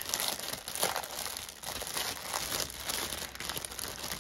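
Plastic packaging crinkling and rustling as it is handled, in irregular crackles.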